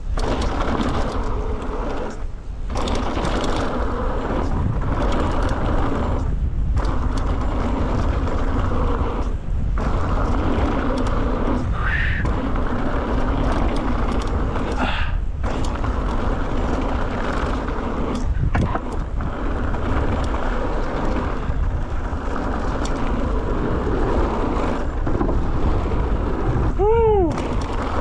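Mountain bike rolling down a dusty dirt trail: a steady, noisy rumble of tyres on loose dirt and wind buffeting the chest-mounted microphone. Near the end, a short pitched tone slides down in pitch.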